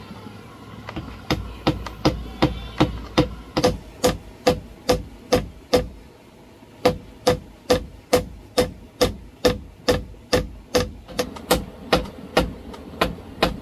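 Hammer driving nails with steady, evenly spaced blows, about two and a half a second, each with a short ring, and a brief pause about six seconds in.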